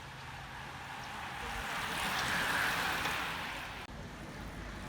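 Bicycles of a group of cyclists passing by: a rushing hiss of tyres and drivetrains that swells to a peak about halfway through and then fades.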